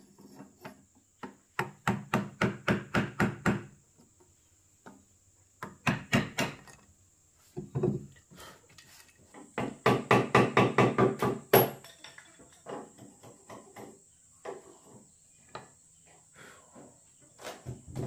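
Repeated blows of a tool striking wood, in fast runs of about six or seven knocks a second. The runs come four times: for about two seconds, twice briefly, then for about two seconds again. Scattered single knocks follow near the end.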